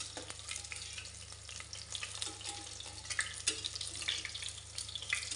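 Boiled eggs sizzling in hot mustard oil in an aluminium pressure cooker, with small pops, while a steel spatula scrapes and clicks against the pot as the eggs are turned to brown on all sides.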